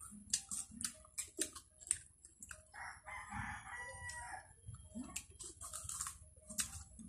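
A rooster crows once, a raspy call of about a second and a half starting about three seconds in. Scattered small clicks and crunches of people chewing and handling crisp rose apple fruit come before and after it.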